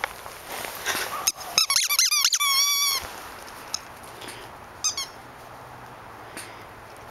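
Squeaky dog toy squeezed in a quick run of high squeaks lasting about a second and a half, starting a little over a second in; a few short clicks follow.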